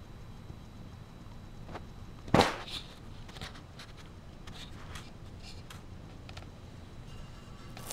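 Handling noise: one sharp knock about two and a half seconds in, then a few faint clicks, over a low steady hum.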